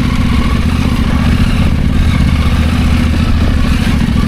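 Husqvarna Norden 901 adventure motorcycle's parallel-twin engine running steadily while riding.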